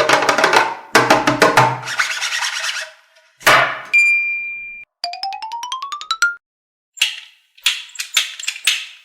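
A string of cartoon-style sound effects: clattering rattles, a short steady high beep about four seconds in, a stepped rising whistle-like glide, then more quick clattering bursts.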